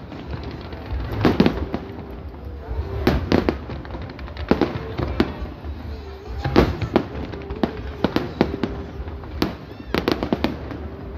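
Aerial fireworks shells bursting over the sea, sharp bangs coming about once a second in irregular clusters.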